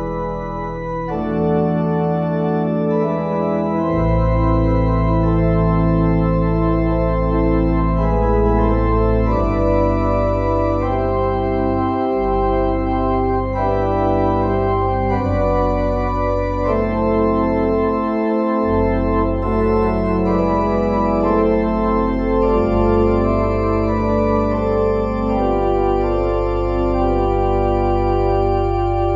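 Organ music: slow, sustained chords over deep held bass notes, the chords changing every second or two, as in a church organ prelude.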